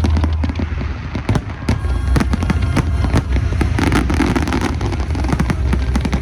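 Aerial fireworks going off in rapid succession: many sharp bangs and crackles, one after another, over a steady low rumble.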